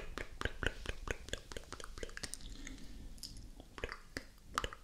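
Wet mouth sounds made right up against a microphone: rapid, irregular clicks and smacks of tongue and lips, several a second.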